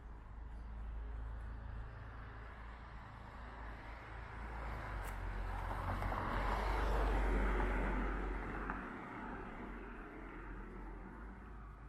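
A car passing along the street, growing louder to a peak about seven seconds in and then fading away, over a steady low rumble.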